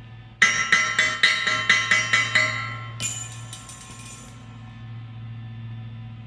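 Hammer striking steel in a rapid run of ringing blows, about four a second, followed by a lighter, brighter series of taps that fades out, over a steady electrical hum.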